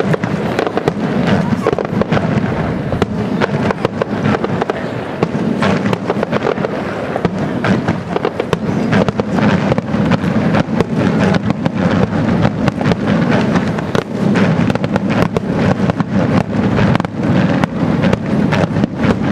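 Aerial fireworks bursting in rapid, continuous succession: a dense run of sharp bangs and crackles with no pause.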